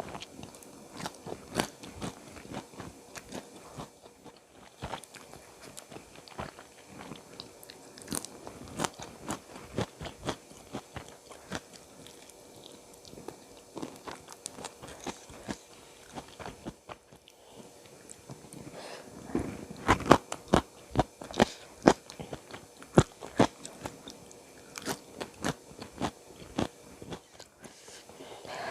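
Close-miked eating: biting and chewing with sharp crunches and wet mouth clicks, the loudest run of crunches about twenty seconds in.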